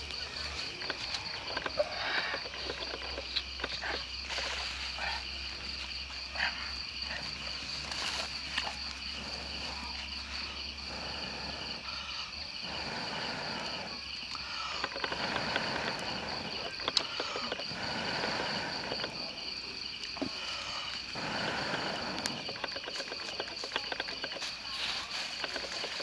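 Night chorus of insects: a steady, rapidly pulsing high trill, with a lower second pulsing band beneath it. Under it are intermittent rustling and small clicks.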